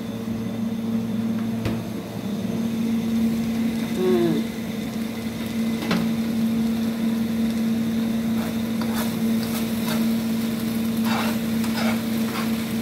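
Instant noodles sizzling as they fry in a pan over a steady low hum, with a couple of spatula knocks against the pan. A short squeaky sound comes about four seconds in, and a run of scraping stirring strokes in the last few seconds.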